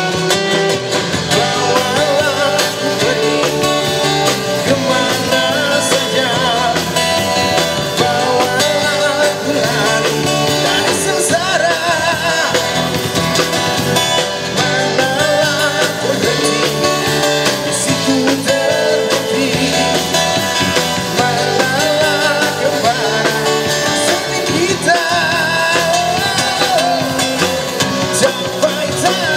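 A male singer on a microphone sings with a live band of acoustic guitar, electric bass and drum kit, playing a steady rock-style song.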